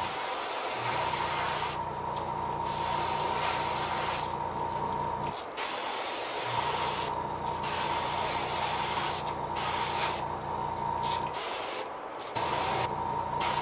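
Airbrush spraying black paint onto a crankbait through an overlay, in hissing bursts with about six short pauses as the trigger is let off. A low hum runs underneath and stops for about a second midway and again near the end.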